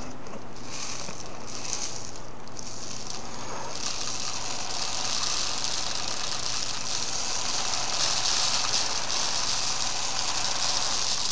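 Small magnets poured into a clear plastic tube and rattling as they run down it: a few short spurts at first, then a steady high rattle from about four seconds in.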